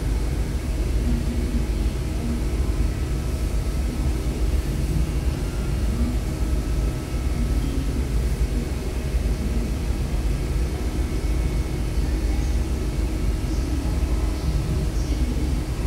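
Steady low engine rumble, even and unbroken, with a few faint steady tones above it.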